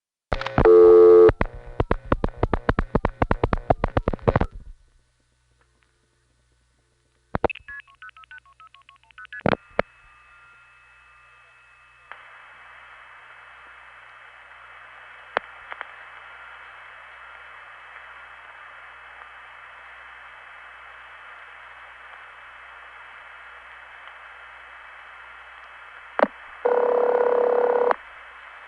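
A 1970s long-distance telephone call setting up across tandem switching offices: a rapid run of multifrequency signalling tones, then switching clicks and short tone bursts as the call cuts through, then open line hiss with a faint steady tone. Near the end a click and a single ring of about a second and a half from the far office.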